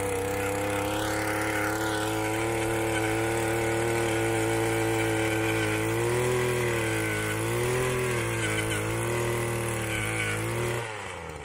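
Harbor Freight Predator gas auger's two-stroke engine running at throttle as its 6-inch bit drills a post hole in soil, the pitch sagging a little a few times as the bit takes load. The engine sound falls off sharply near the end as the throttle is let go.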